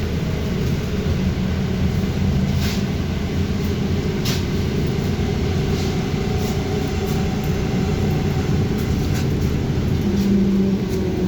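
Inside a BKM 321 trolleybus: a steady low rumble with a faint whine that slowly shifts in pitch. Short clicks and rattles sound here and there.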